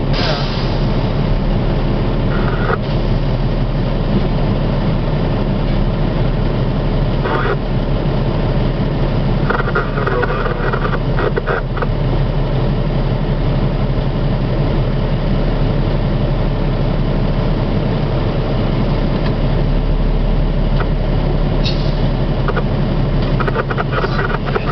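Diesel locomotive engine running steadily, heard from inside the cab as the train rolls slowly along: a constant low drone, with a few brief higher-pitched sounds over it through the middle and near the end.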